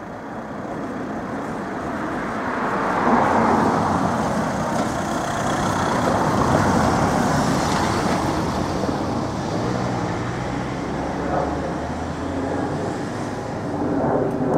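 A van drives past close by, its engine and tyre noise swelling to its loudest in the middle and then easing off.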